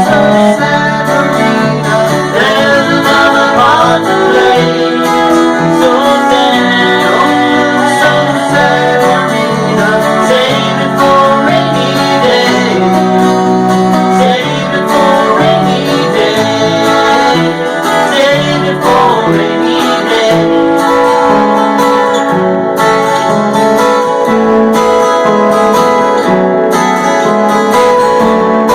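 Acoustic band playing a country-rock song: strummed acoustic guitars with cello underneath.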